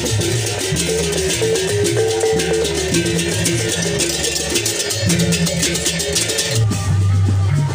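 Sasak gamelan played on the march: rapid clashing hand cymbals over a melody on small kettle gongs and a large barrel drum. About six and a half seconds in, the cymbals drop out and the low part grows louder.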